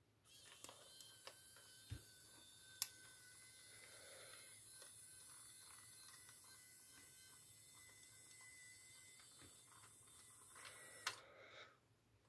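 Small electric gear motors of a scale RC SEM 822 dozer running, driving its track, with a faint steady high whine. A few light clicks come in the first few seconds, and the whine cuts off about eleven seconds in.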